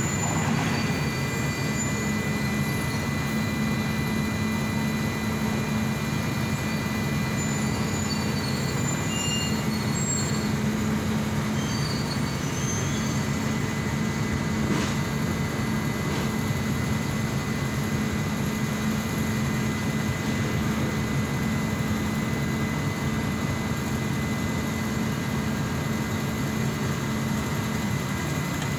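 Steady low engine drone running without change, with a thin constant whine above it and faint high chirps now and then.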